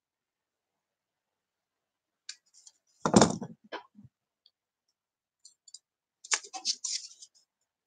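Hand tools and small plastic model kit parts handled on a desk cutting mat: a single loud knock about three seconds in, a few faint ticks just after it, then a quick run of light clicks and clatter near the end.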